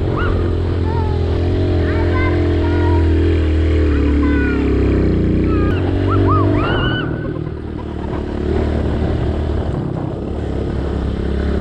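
Small dirt bike engine running steadily while riding along a dirt track; the engine note drops briefly about eight seconds in as the throttle eases, then picks up again.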